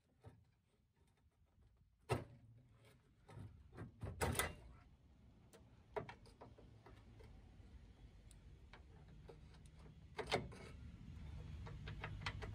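Scattered metallic clicks and knocks of hand tools working on the car's rusty steel front structure, with a sharp knock about two seconds in, a cluster around four seconds and another sharp one near ten seconds. A low steady hum grows louder through the second half.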